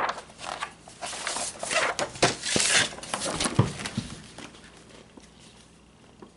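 Paper rustling and handling of a large big book as its cover and pages are turned: a run of crinkly rustles and a few light knocks that dies away about four seconds in.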